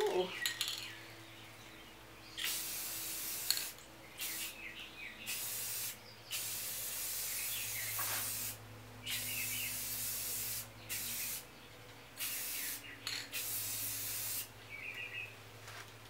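Aerosol spray paint can (Rust-Oleum 2X Ultra Cover, gloss black) hissing in a series of bursts, each a second or two long with short pauses between, starting about two and a half seconds in, as coats of paint go on.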